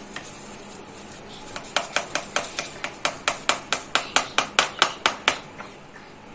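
A foil powder packet tapped rapidly against a steel pan to shake out the last of the powder: a quick run of sharp taps, about five a second, starting after a second and a half and stopping about a second before the end.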